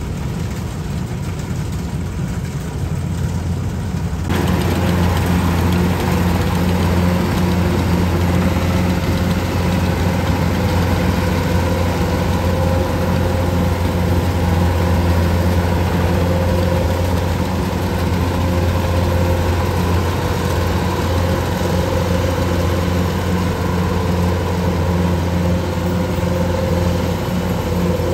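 Kubota DC-105X combine harvester's diesel engine and threshing machinery running steadily under load as it cuts and threshes lodged rice. The sound grows louder and fuller about four seconds in.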